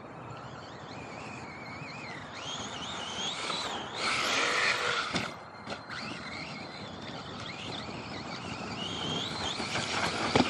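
RC truck driving over sand, its motor whining up and down in pitch with the throttle and a louder rush about four seconds in. Near the end there is a sharp knock as the truck hits a boulder.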